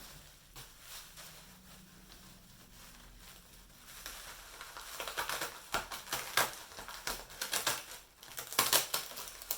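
Protective packaging wrap being handled and pulled open, rustling and crackling in quick, irregular bursts that start about four seconds in and grow loudest near the end.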